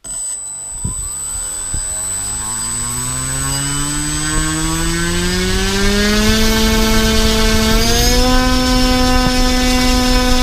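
T-Motor AS2814 KV900 brushless outrunner motor spinning an APC 12x6 propeller on a 3S battery, throttled up on a thrust stand: the propeller hum starts at once and rises steadily in pitch for about eight seconds, then steps up a little and holds steady at full throttle. A thin high whine runs alongside for the first several seconds.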